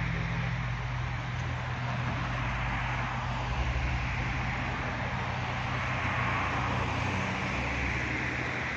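Steady outdoor background noise like road traffic, an even hiss with a low hum underneath.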